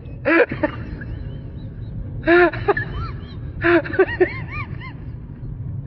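A person's voice crying out again and again in rising-and-falling calls, a loud one about every second and a half with shorter ones after it, over the steady low rumble of a flyboard's water jet.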